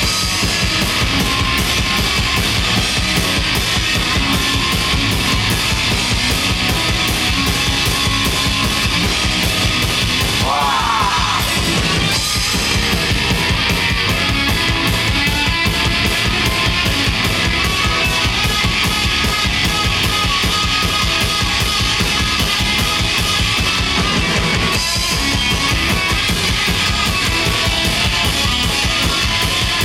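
Live punk rock band playing loud: distorted electric guitars, bass guitar and a pounding drum kit, with the singer's voice in the mix.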